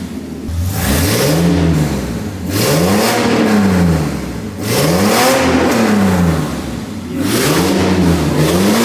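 BMW 750iL V12 on open headers with no muffler, revved in repeated blips, about five rises and falls in pitch with a quick double blip near the end. It sounds harsh and out of tune, which the owner takes to mean the open-header setup still needs tuning.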